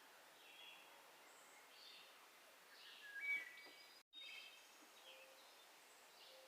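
Quiet outdoor background with faint, scattered bird chirps; one louder rising chirp comes about three seconds in. The audio drops out completely for a moment just after four seconds.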